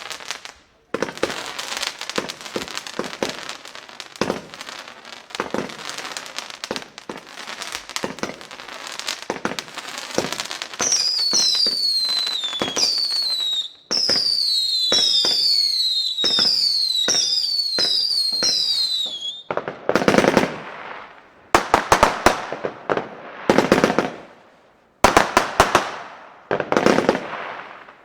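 Weco Matrix consumer firework battery firing. First comes dense crackling from crackling comets. Next, about ten seconds in, comes a run of whistles, each falling in pitch, about one a second, over the crackle. From about twenty seconds in come separate volleys of fan-salvo shots with crackle, each lasting a second or two.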